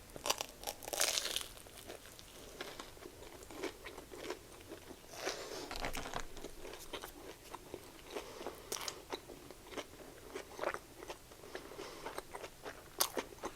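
A person chewing and crunching a potato-crusted Korean corn dog: many small crackles throughout, with louder crunches about a second in and again around five seconds in.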